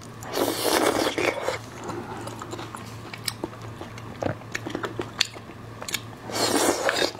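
Close-miked eating of saucy marinated raw seafood: two long, loud wet slurps as strands are drawn into the mouth, one just after the start and one near the end, with soft wet chewing clicks between them.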